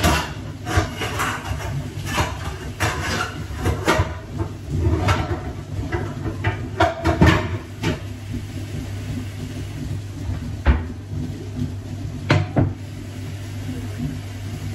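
Cupboard doors opening and closing and things being handled in a kitchen: a string of sharp knocks and clacks, loudest about seven seconds in, over a steady low hum.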